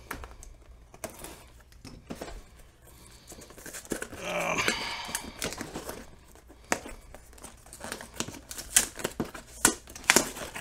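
A cardboard shipping box being slit and pried open by hand: a utility knife cutting the tape, then the cardboard flaps scraping, crinkling and tearing. Sharp clicks and taps of handling run through it and are loudest near the end.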